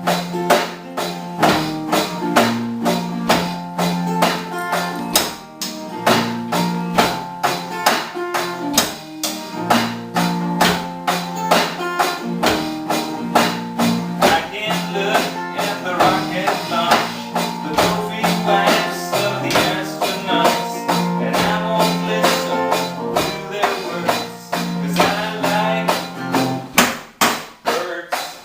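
A band playing live: guitar over a drum beat keeping steady time, with a low line moving underneath.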